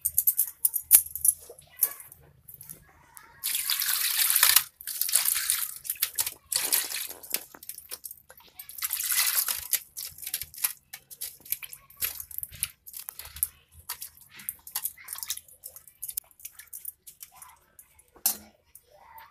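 Water splashing and sloshing in a steel bowl as raw fish heads are washed by hand, with sharp clinks against the metal. Two longer rushes of water come about four and nine seconds in.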